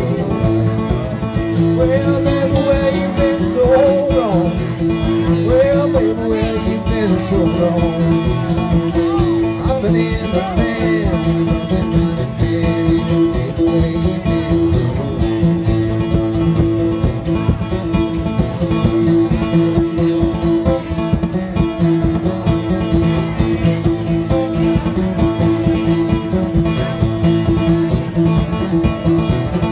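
Banjo and acoustic guitar playing an old-time tune together.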